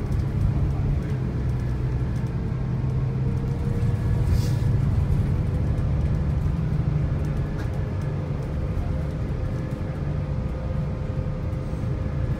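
Onboard a Bustech CDi bus under way: its Cummins ISL Euro 5 inline-six diesel runs steadily with a low drone and road rumble heard through the cabin. A brief hiss sounds about four and a half seconds in.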